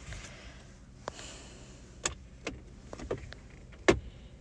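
Plastic clicks and knocks from handling the snapped-off steering-column stalk of an Arcfox T5, which hangs loose by its wires: a handful of short sharp clicks, the loudest near the end.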